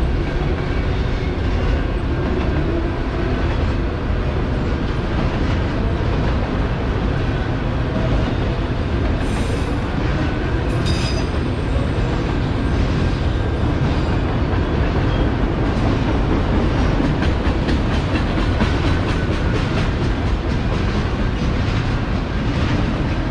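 Autorack cars of a Norfolk Southern freight train rolling past close by: a steady noise of steel wheels on rail, with a couple of brief high-pitched wheel squeals near the middle.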